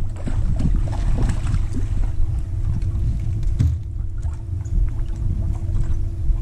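Bow-mounted electric trolling motor running with a steady hum, over an uneven low rumble of wind on the microphone and a few light knocks.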